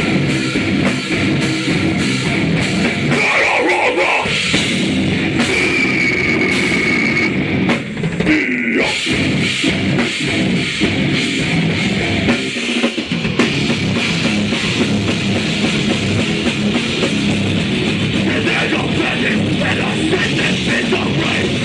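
Loud rock music with a full drum kit and guitar, playing through a DJ mix.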